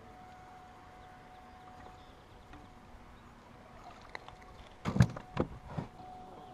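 Three loud knocks against a small aluminum fishing boat about five seconds in, as a hooked walleye is brought to the boat's side. Before them only a quiet steady background with a faint thin whine.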